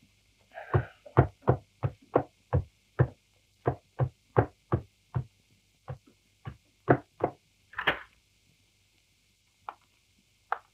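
Heavy footsteps climbing a wooden staircase, about two steps a second, each a sharp knock; the steps stop about eight seconds in, and two faint knocks follow near the end.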